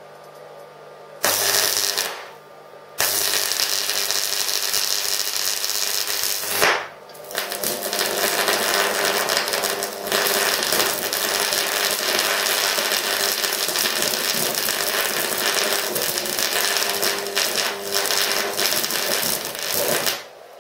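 Crackling, buzzing arc of an AC stick welder, a homemade microwave-oven-transformer machine, as a rod is welded onto steel plate. The arc strikes about a second in and runs briefly, stops, then re-strikes. After a short break near the middle it burns steadily until it is broken off just before the end.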